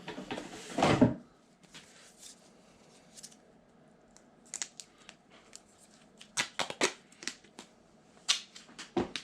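Close-up handling of duct tape and small plastic parts: a short rasp in the first second, then scattered clicks and crinkles.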